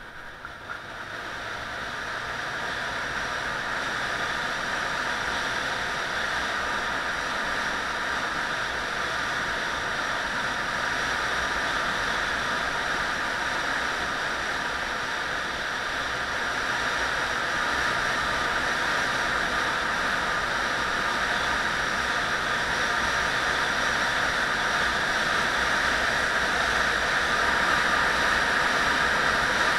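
Steady rushing of wind and road noise from a vehicle moving at speed along a tarmac road, heard as wind on the microphone. It grows louder over the first few seconds as the speed builds, then holds.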